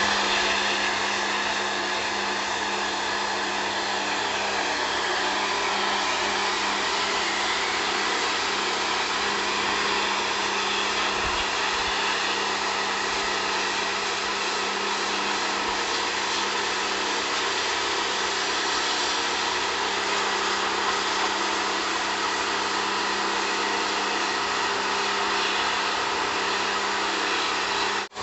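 Small electric pressure washer running steadily, its motor and pump humming while the lance jets water onto brick paving, with a brief drop-out near the end.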